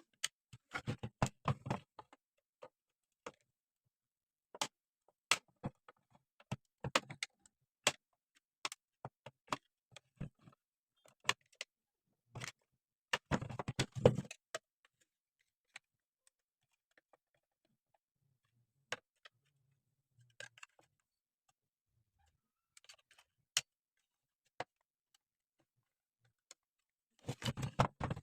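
Small metal parts and tools clicking and clattering as they are handled, in short clusters with quiet gaps between. The loudest clatter comes about halfway through.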